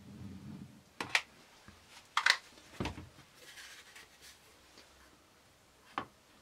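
Handling knocks and clatters on a workbench: a hot glue gun set down on a cutting mat with a few sharp clicks and a dull thump, then a round MDF platform fitted onto the oak turntable base with a single click near the end.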